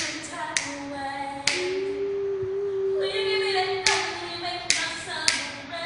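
A cappella singing: an unaccompanied voice holding long notes, with sharp hand claps dropping in between phrases about seven times.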